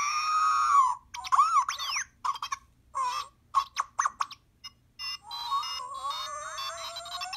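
Hot Toys MMS408 R2-D2 figure playing R2-D2's droid sound effects: a string of electronic beeps, whistles and warbling chirps with quick up-and-down pitch glides, then a long rising warble from about five seconds in.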